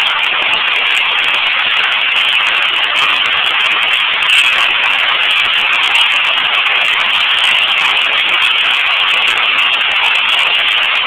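Hailstorm: hail and heavy rain pelting the pavement and buildings in a loud, steady hiss.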